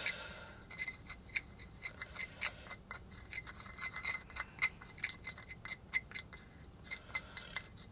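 A stirrer mixing rubber powder and glue into a thick repair paste in a small metal cup, scraping round the cup and clinking on it many times, each clink ringing briefly. The scraping is loudest near the start and again near the end.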